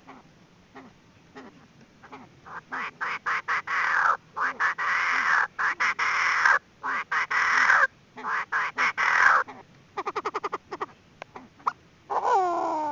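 Female Chinese francolin calling: after a few faint notes, a long run of loud, harsh, grating notes in bursts, then a quick rattling trill, and a single call falling in pitch near the end.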